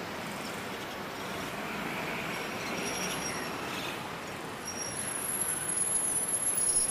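Road traffic on a busy city street: a steady wash of passing cars, taxis and motorcycles, swelling as a vehicle goes by a couple of seconds in and growing louder near the end.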